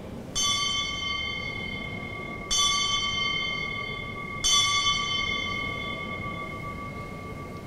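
Altar bell struck three times, about two seconds apart, each stroke ringing on and slowly fading: the bell marking the elevation of the chalice at the consecration of the Mass.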